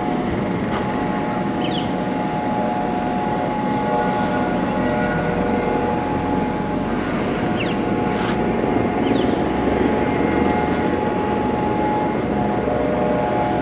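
Vehicle engine running steadily, with several held steady tones over a constant rumble and a few brief high chirps.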